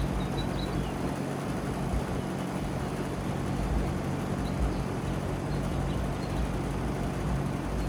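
OxBox 2-ton central air conditioner condenser running steadily, a low compressor hum under the even rush of the condenser fan.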